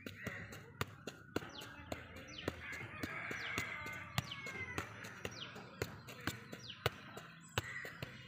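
A football being juggled with the feet, a short thud at each touch, about two touches a second. Birds call in the background.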